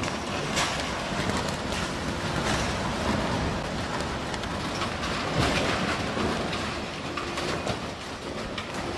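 Storm wind blowing hard across the microphone, with scaffolding sheeting flapping and the metal frame clattering in frequent sharp knocks over a continuous rush of noise.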